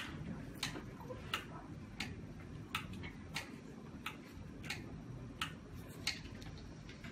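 Regular sharp ticking, about three ticks every two seconds, with fainter clicks between them, over a low steady hum.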